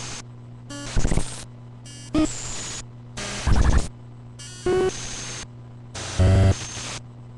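Electronic synthesizer sequence looping: short noisy hits and bleeping pitched tones in blocks that repeat about every 1.3 seconds, their pitch and tone changing from one repeat to the next as a knob is turned. A low steady hum runs underneath.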